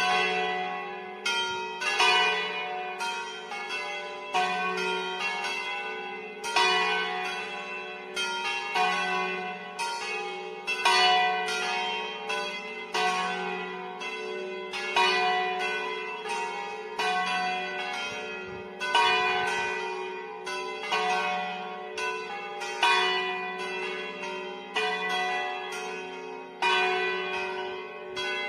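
Four church bells rung a distesa, swung in full so that their strokes fall over and over in an irregular, overlapping peal, about one to two strokes a second, each ringing on into the next.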